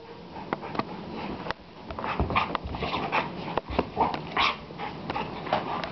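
Two dogs play-fighting, with a rapid, irregular run of short growls, whines and yips that gets busier about two seconds in.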